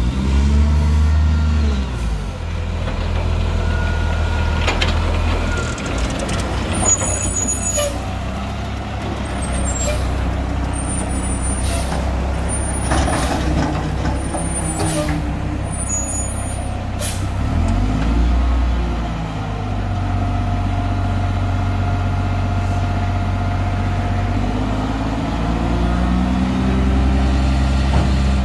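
Mack garbage truck with a McNeilus front-loader body: its diesel engine runs steadily and revs up a few times. Air brakes hiss several times in the middle stretch, along with a series of short high-pitched squeaks.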